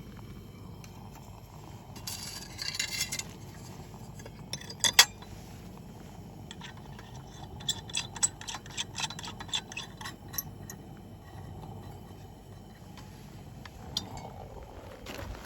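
Glassware and tableware being handled: scattered clinks and taps, the sharpest about five seconds in, then a quick run of small clinks a few seconds later.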